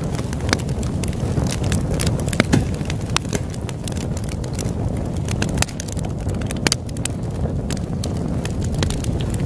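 Wood fire crackling, with many sharp, irregular pops and snaps over a steady low rumble.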